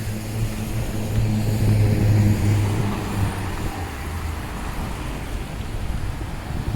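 A motor vehicle's engine running close by with a steady low hum that fades out about four and a half seconds in, over general street traffic noise.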